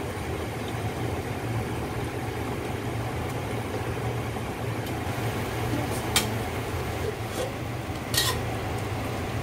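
Metal spoon stirring and scraping in a steel wok of beef chops in thick sauce, with two sharp metal clinks about six and eight seconds in. A steady low hum runs underneath.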